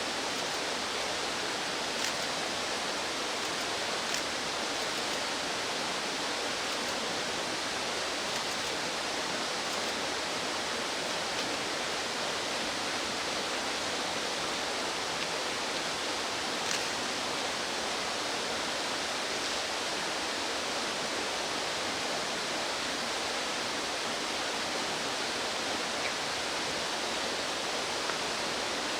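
Fast-flowing mountain stream rushing steadily. Three faint, short, high ticks come through it in the first half.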